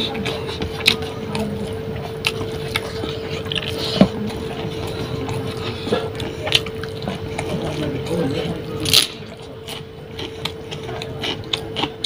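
Close-up eating sounds: chewing and sharp wet mouth clicks and smacks, with fingers mixing rice and curry on a tray. A steady hum runs underneath.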